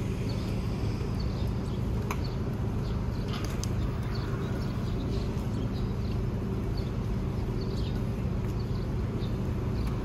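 City street ambience: a steady rumble of traffic, with birds chirping now and then above it. A sharp click about two seconds in.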